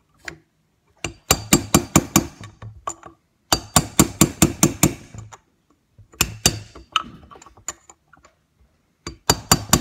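Steel hammer striking the aluminium housing of an Eaton Model 7 hydrostatic transmission to drive out its front bearing: several runs of quick blows, about five a second, each with a bright metallic clink.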